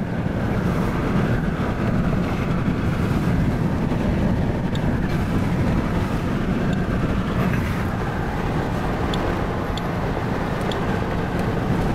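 Steady road and wind noise inside a moving car, heard through an open side window: the rush of the car travelling at road speed, strongest in the low rumble.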